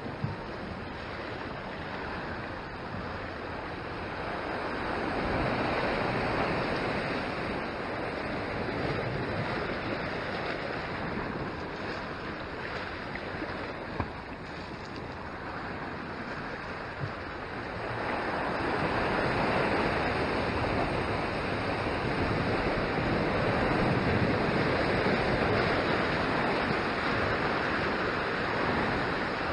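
Ocean swell washing against shoreline rocks, with wind on the microphone. The wash grows louder about five seconds in and stays louder through the last ten seconds or so; there are a few faint short clicks.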